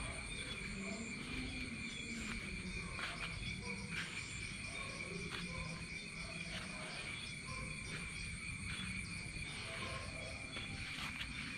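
Crickets and other night insects trilling in a steady, unbroken high drone, with soft scattered clicks or crunches every second or so.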